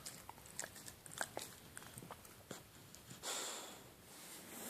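Boxer dog snoring in its sleep: a run of small clicks and mouth noises, then about three seconds in a long noisy snoring breath, the loudest sound, and a weaker breath near the end.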